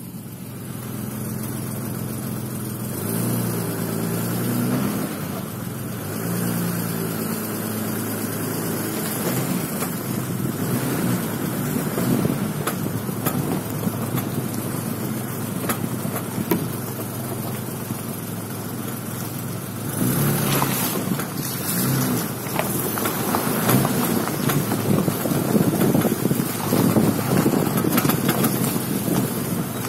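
BMW E32 on the move: steady engine and road noise, with several short knocks about ten, twelve, fifteen and twenty seconds in. The knocks are the unexplained knock the owner is hunting, which a diagnosis did not trace to the suspension.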